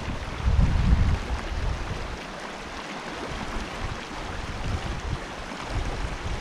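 Stream water rushing over shallow rapids in a steady hiss. Low gusts of wind buffet the microphone, strongest about half a second to a second in.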